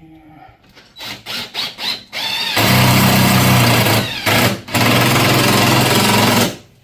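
Cordless impact driver driving a lag screw through a strap into the wall: a few short trigger pulses, then two long runs of rapid hammering, briefly broken in the middle and stopping suddenly near the end.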